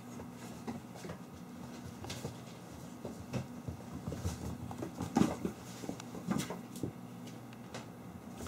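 Kittens scampering and scuffling at play: scattered light taps and scrabbles of paws on a wooden floor and in a cardboard box, with two louder knocks past the middle, over a faint steady low hum.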